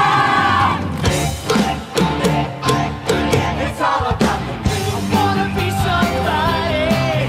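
Live Broadway-style show music: an upbeat rock-pop pit band with a steady drum beat, the company singing over it with a loud held chord at the start and a wavering held note near the end.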